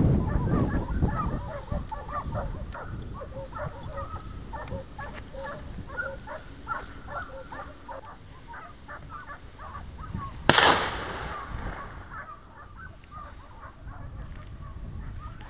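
A pack of hunting hounds baying in quick, broken calls, then a single loud shotgun shot about ten seconds in that rings off and fades over a second.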